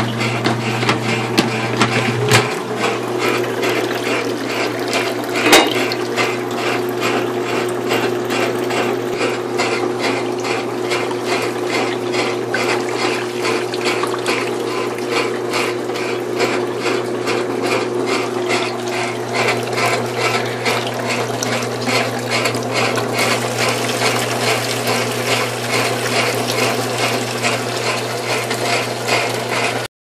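Antique Automatic Electric Washer Co. electric washing machine running: a steady motor hum under an even, rhythmic clatter from its agitator gearing, about two strokes a second, with water sloshing in the copper tub. A single sharp knock sounds about five seconds in.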